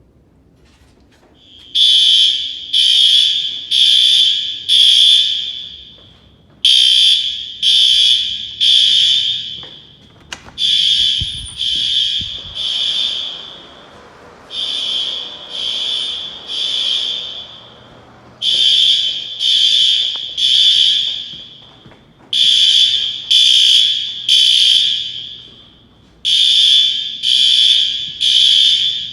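Fire alarm horn strobes sounding, set off from a manual pull station for a system test. They give the temporal-three evacuation pattern: three short high-pitched blasts, a pause of about a second and a half, over and over, starting about two seconds in. The horns are quieter in the middle and loud again near the end.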